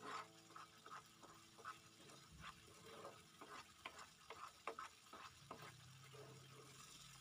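Metal spatula stirring thick spice paste frying in a wok, with repeated faint scrapes and taps against the pan and a soft sizzle.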